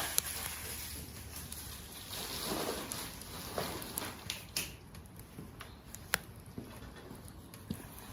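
Bonfire of scrap construction lumber burning, crackling steadily with a few sharp pops.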